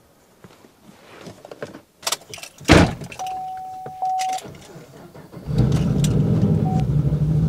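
A car door slams shut and a short steady electronic tone sounds. Then, about five and a half seconds in, the cammed 6.2 L V8 of a 2013 Camaro SS starts and runs at a loud, steady idle.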